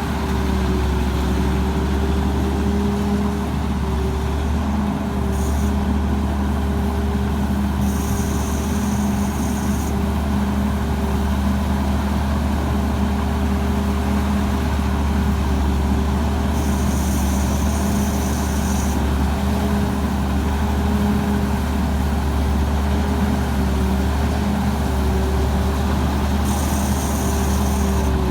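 Diesel engine of a Tamco Pro S9000 rice combine harvester, a Hino J08C inline-six, running steadily with only a slight waver in pitch. A high hiss comes and goes several times, each spell lasting a second or two.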